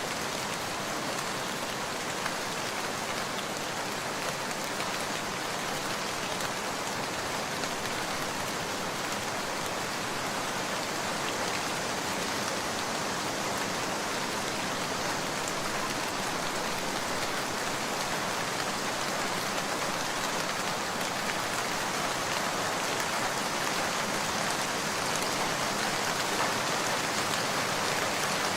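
Steady rain falling, an even hiss of many raindrops with faint individual drop ticks.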